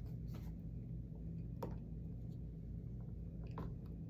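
A steady low hum with a few light taps over it, the clearest about one and a half seconds in: small plastic lotion bottles being handled and set down on a stainless steel worktable.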